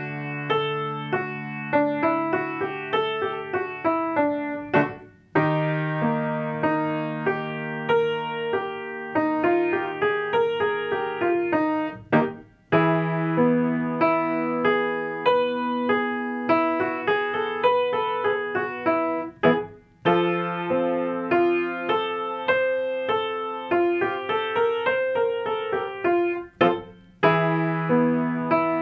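Piano playing a vocal-exercise accompaniment: a held low chord with a short run of notes rising and falling above it, repeated in phrases about seven seconds long with a brief break between each.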